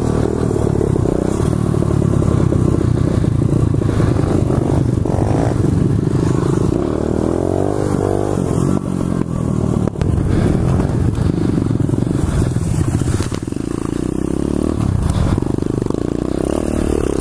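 Pit bike's small single-cylinder engine running under the rider, revving up and easing off several times as it is ridden through the gears.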